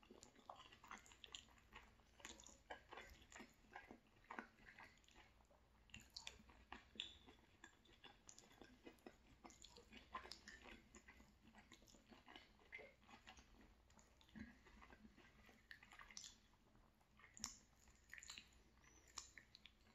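Faint close-up chewing of a mouthful of rigatoni pasta and sausage: a steady scatter of small mouth clicks.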